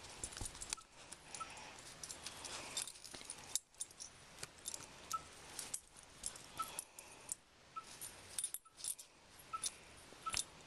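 A puppy worrying a plush toy elephant: fabric rustling and mouthing, with many quick metallic jingles and clicks as it shakes and tugs.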